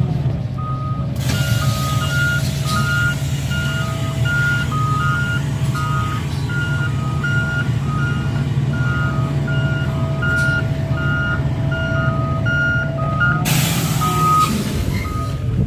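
Garbage truck reversing, its backup alarm beeping steadily in two alternating tones, high and low, over the running engine. A loud hiss comes near the end.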